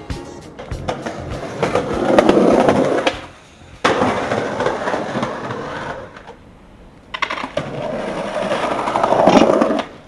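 Skateboard wheels rolling over concrete in three separate runs, each growing louder. The second run starts with a sharp clack of the board, about four seconds in.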